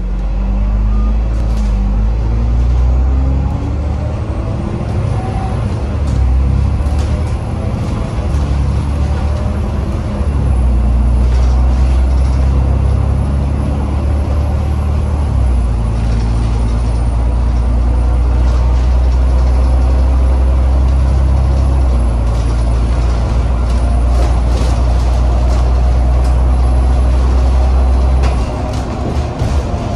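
Alexander Dennis Enviro 500 MMC double-decker bus's Cummins diesel engine under way, heard from inside the passenger cabin: a heavy, steady low rumble with a whine that rises in pitch over the first few seconds as the bus gathers speed. The engine note steps down and changes a few times, about halfway through, around two-thirds through and near the end.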